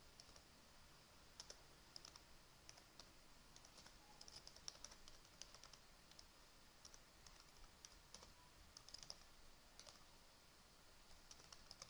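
Faint typing on a computer keyboard: quick, irregular key taps in short runs as an address is typed.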